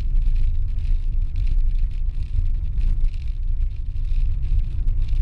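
Car driving on a rough unpaved dirt road, heard from inside the cabin: a steady low engine and tyre rumble with small knocks from the uneven surface.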